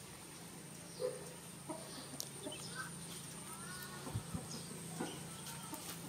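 Scattered short clucking calls of fowl over a steady low hum.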